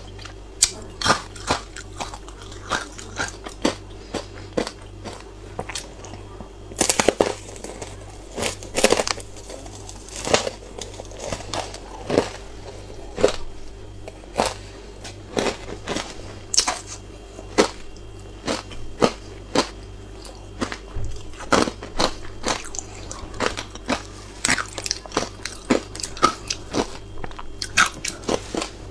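Frozen buckwheat ice chips coated in matcha powder being bitten and chewed close to the microphone: sharp, irregular crunches, about one or two a second, over a steady low hum.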